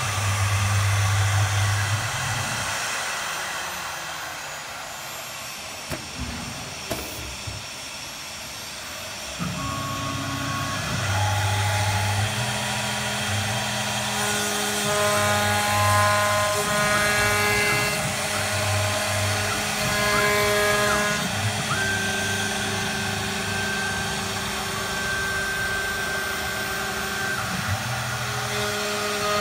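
Three-spindle 1325 CNC router carving a door-panel pattern into a wood board: the spindles run with a steady whine while the axis drives add tones that start, stop and shift in pitch as the gantry moves. It is quieter for a few seconds in the first third, with a few small clicks.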